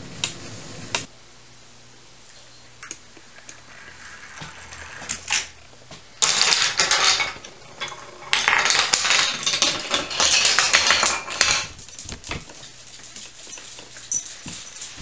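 Rows of wooden dominoes toppling one into the next in a Rube Goldberg chain reaction, making a rapid clatter in two long runs, with single clicks and knocks of levers and blocks before and between them.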